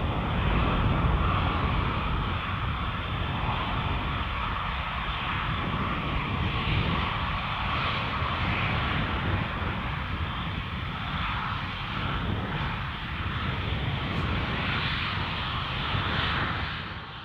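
Airbus A350-900's Rolls-Royce Trent XWB jet engines running at departure power, a steady deep jet roar with a heavy low rumble, fading out near the end.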